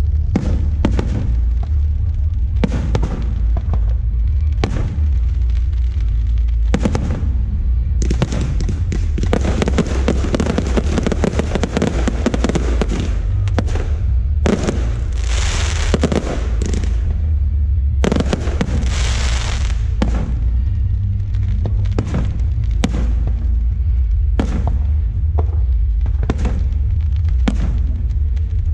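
Aerial fireworks show: a rapid string of shell bursts and booms, thickening into a dense volley of crackling bursts about ten seconds in, with two bright hissing crackle bursts around fifteen and nineteen seconds, over a steady low rumble.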